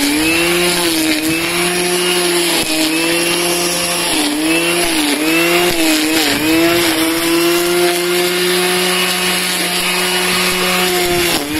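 String trimmer running at full speed, its motor pitch dipping briefly several times as the line cuts into grass and brambles.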